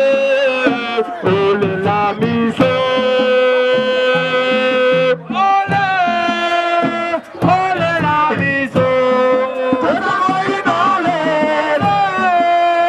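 Music: a melody of long held notes that bend and glide, over a drum beat.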